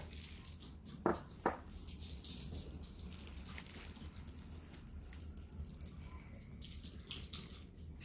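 Two light, sharp knocks about half a second apart, then faint rustling and handling noises over a low steady hum.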